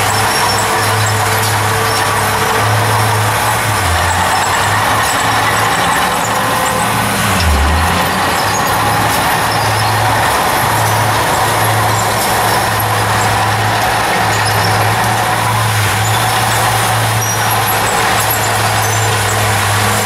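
Small crawler bulldozer's diesel engine running steadily while it pushes soil and reverses, its note dipping briefly twice, about four and about seven and a half seconds in.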